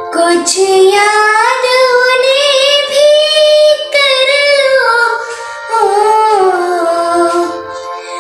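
A young girl singing solo, holding long notes that glide up and down, with brief breaths between phrases.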